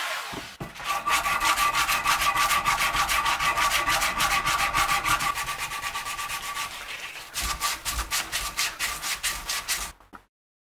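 Hand shaping of a curved notch in a block of black locust held in a vise: fast back-and-forth rubbing strokes, several a second. The strokes pause briefly about seven seconds in, resume, then stop shortly before the end.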